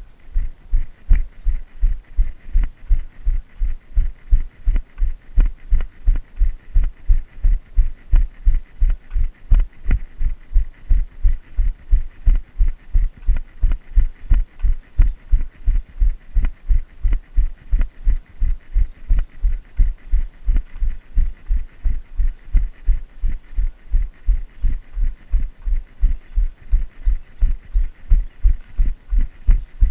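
A runner's footfalls on a trail: steady, heavy low thuds at a running cadence of about three a second.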